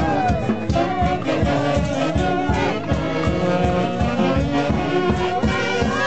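Live band with saxophones and trumpets playing a lively dance tune together over a steady beat.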